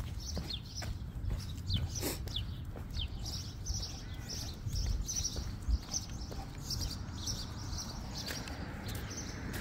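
Small birds chirping in a steady stream of short, high chirps, over a low rumble with a few sharp clicks.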